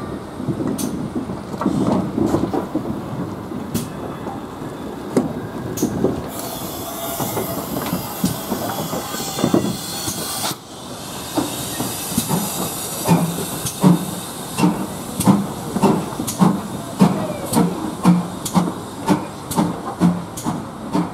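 GWR Manor class 4-6-0 steam locomotive 'Dinmore Manor' getting under way. There is a loud hiss of steam for about four seconds around the middle, then regular exhaust chuffs that quicken from about one and a half to two a second as it gathers speed.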